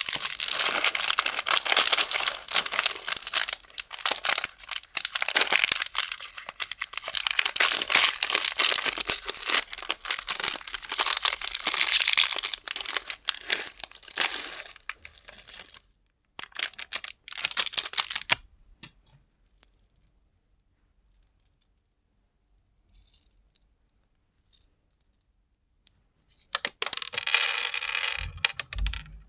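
Plastic candy wrappers crinkling and being torn open, with small candies rattling. There is a long stretch of dense crackle, then scattered light clicks and taps, and a second burst of crinkling near the end.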